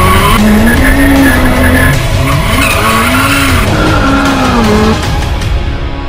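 Car engine revving up and down while its tyres squeal through a skid, fading out near the end.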